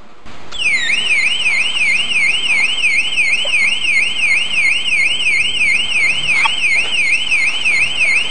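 Sound-effect circuit of two 555 timer chips, the first modulating the second through its pin 5, sounding through a small speaker: a warbling electronic siren tone that starts just over half a second in and sweeps up and down about three times a second.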